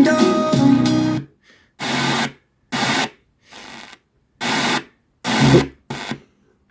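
Retro FM clock radio being tuned through stations: snatches of broadcast music come from its small built-in speaker. After a longer stretch of music, about five short bursts are each cut off by silence as it passes between stations, and it goes quiet near the end.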